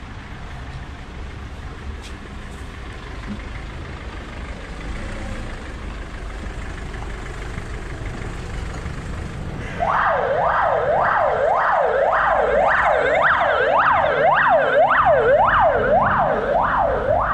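Street traffic noise, then about ten seconds in an ambulance siren switches on, a fast yelp that sweeps up and down about twice a second.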